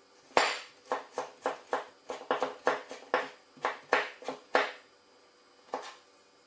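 Chinese cleaver chopping ginger slices into thin strips on a wooden cutting board: a quick run of sharp knocks, about four a second, for about four seconds, then one more chop near the end.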